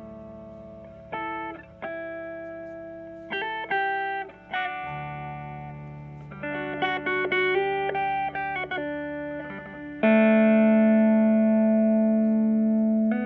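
Background music of plucked guitar notes, with a quick run of notes in the middle and a loud sustained chord from about ten seconds in.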